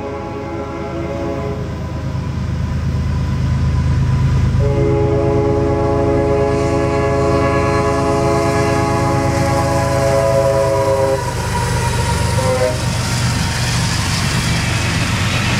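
Freight train approaching with its diesel locomotives running under load, the lead engine sounding a multi-chime air horn for about six seconds before it cuts off sharply. As the locomotives pass, wheel and rail noise builds up.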